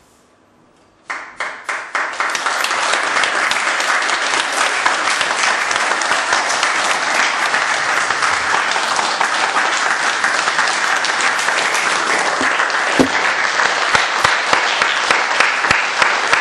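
Audience applauding: a few separate claps about a second in, quickly swelling into steady applause.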